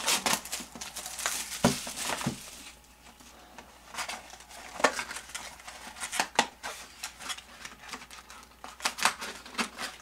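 Trading card box and foil packs being opened by hand: crinkling and tearing of wrapping with many sharp clicks and taps of cardboard.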